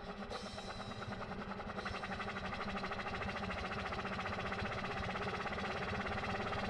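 Hardcore electronic dance music in a build-up: a fast, evenly rolling pulse that grows steadily louder.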